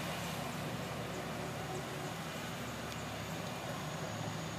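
Distant International Harvester tractor engine running steadily as it drives past, a low even drone.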